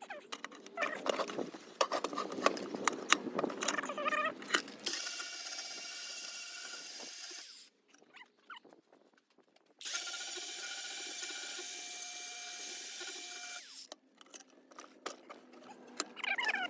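Handheld power tool working metal: irregular scraping and squealing at first, then two steady runs of a few seconds each with a constant motor whine, and the tool spinning up again near the end.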